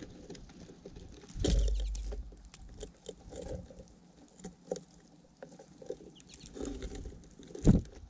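American goldfinches and a dark-eyed junco pecking and shuffling in seed on a platform feeder right at the microphone, making an uneven patter of small taps and clicks. There is a louder thump with a brief low rumble about a second and a half in, and another sharp thump near the end.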